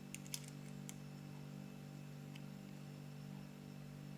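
A few light metallic clicks, mostly in the first second, from the lock decoder and key being handled, over a steady low electrical hum.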